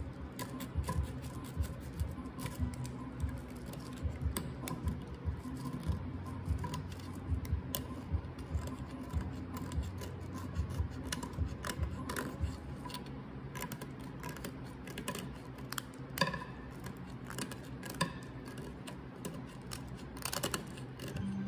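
A knife blade scraping along an arrow shaft in short, irregular strokes, with a few sharper clicks, shaving off a broken fletching vane and its old glue.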